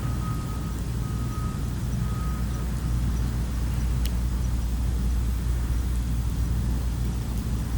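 A vehicle's reversing alarm beeping in a steady repeating single tone, stopping about two and a half seconds in, over a steady low engine rumble. One sharp pop comes near the middle.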